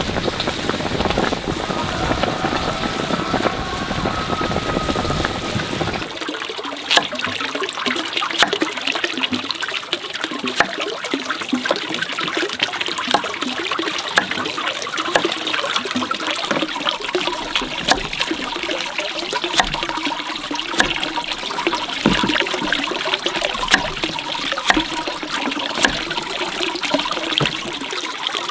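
Water trickling and splashing, with many small clicks. The low rumble under it stops abruptly about six seconds in.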